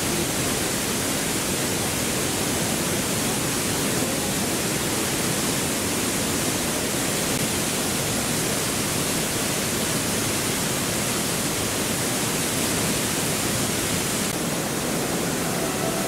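Steady, even rush of a waterfall's falling water, unchanging throughout.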